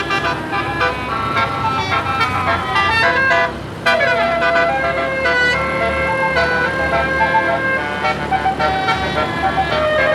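Bus telolet basuri musical air horn playing a melody of held notes that change in steps, with a brief break a little over three seconds in followed by a downward slide in pitch.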